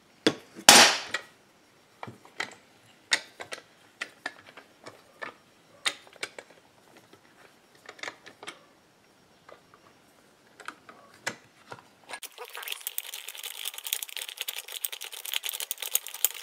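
Scattered metal clicks and clinks of hand tools on a chainsaw crankcase assembly puller, then, about twelve seconds in, a fast run of ratchet clicks as the puller screw is turned to draw the crankshaft through the case seal and pull the crankcase halves together.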